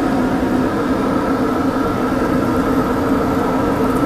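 A steady engine-like drone: a motor running evenly with a constant low hum, no changes or sudden sounds.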